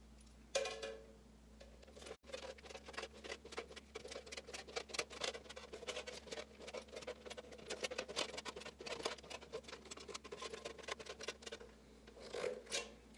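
Hand crimping tool squeezing the end of a galvanized sheet-metal furnace duct, a rapid, irregular run of metallic clicks and crunches, several a second, as the edge is crimped all the way round so it will fit into the next pipe. A single sharper click with a brief metal ring comes about half a second in.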